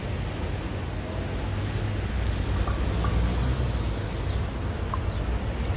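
Steady street noise: a low rumble of road traffic under an even hiss.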